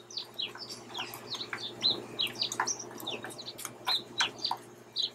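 Small birds chirping, quick downward-sliding chirps several a second, some overlapping, over a faint steady low hum.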